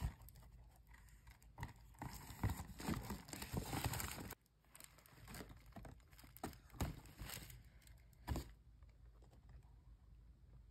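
Faint rustling and crinkling of a paper shopping bag and cardboard gift box being handled as the box is drawn out, with scattered light taps and clicks. The handling is busiest in the first four seconds and dies away after about eight.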